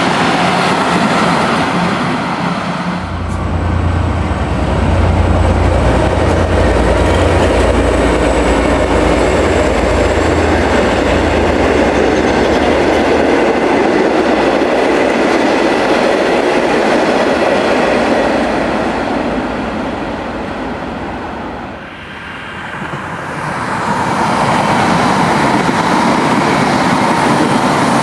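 A Comeng electric suburban train passing, then, about three seconds in, an N class diesel-electric locomotive passing at the head of passenger carriages, with a heavy low engine drone over rail noise and wheel clatter. About twenty-two seconds in, the sound drops and a Siemens electric suburban train passes with wheel and rail noise.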